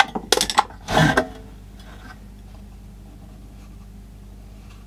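A few sharp clicks and a clunk in the first second or so as test probes and the metal power-supply case are handled on the bench, then only a faint steady low hum.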